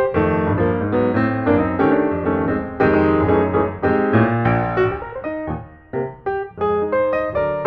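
Background instrumental music: a tune of quick, short notes.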